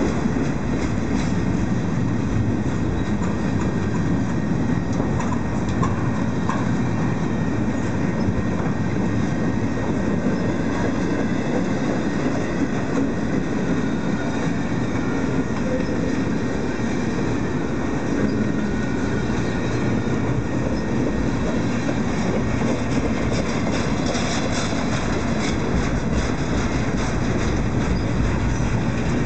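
Double-stack container well cars of a freight train rolling past at close range: a steady rumble of steel wheels on rail, with light clicks from the wheels.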